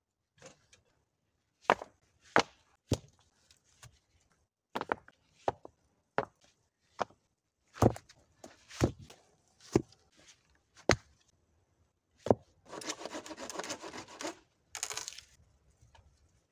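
A series of sharp, separate knocks as loose rocks are picked up and set down against other rocks. Near the end come about two seconds of dense crackling and rustling of dry brush and leaves.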